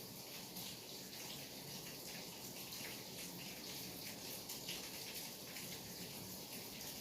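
Steady rain falling: an even hiss with a dense patter of drops.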